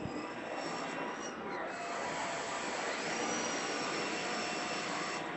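Steady rushing background noise with a faint high whine that drifts a little in pitch.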